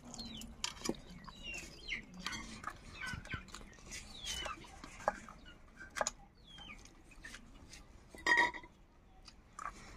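Birds calling and chirping in short rising and falling notes, with one louder call about eight seconds in, over scattered light clicks of fingers on steel plates as rice is eaten by hand.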